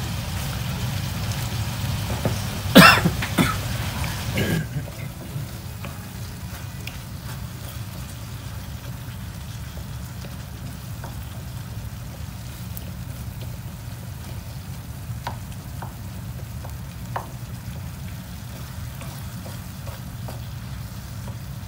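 Diced tomatoes and onions cooking in a frying pan and being stirred with a wooden spatula, with a few faint clicks of the spatula on the pan over a steady low hum. A short burst of loud, sharp noises comes about three seconds in.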